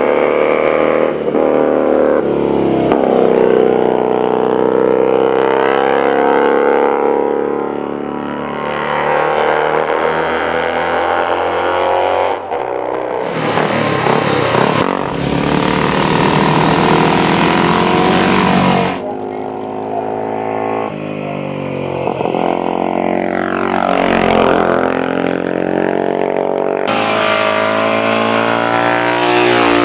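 Racing motorcycle engines revving hard and passing at speed, their pitch climbing and falling as the bikes go through the gears and sweep by. The engine sound changes abruptly a few times.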